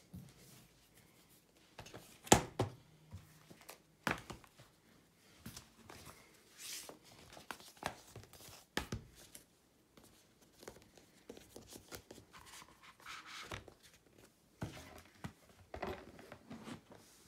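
Pieces of a 3D-printed plastic board-game box insert and game components being handled: scattered clicks and knocks with bouts of rustling, the sharpest knock about two seconds in.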